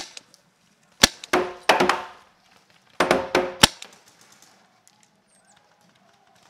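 Sharp pops of paintball markers firing: three single shots, about a second and two and a half seconds apart. Two short bursts of raised voices come between the shots.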